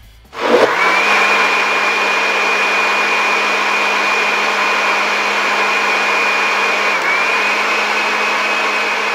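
Electric countertop blender switching on about half a second in and quickly spinning up, then running steadily as it blends a liquid carrot, milk, orange juice and egg mix. It has a brief dip in motor speed about seven seconds in.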